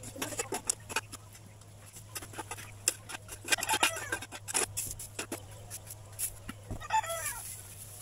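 Chickens clucking, once about halfway through and again near the end, over repeated scraping and rustling of old straw being cleared out.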